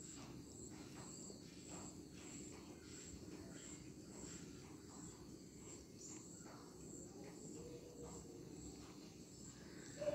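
Faint, high-pitched insect chirping in an even pulse about twice a second, with soft scattered clicks beneath it.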